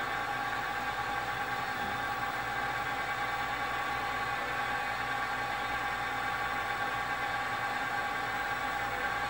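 Sieg SX2.7 bench mill's spindle running freely at about 1,020 RPM: a steady whir with a few steady tones. The end mill is spinning but has not yet reached the aluminum workpiece, so there is no cutting.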